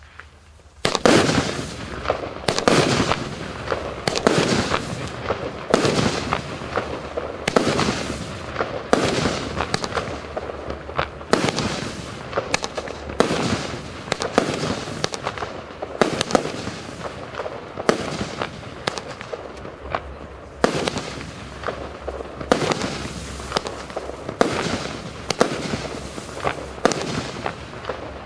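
A 238-shot compound fireworks cake firing: a rapid, continuous string of shots and aerial bursts that starts about a second in and keeps going without a break.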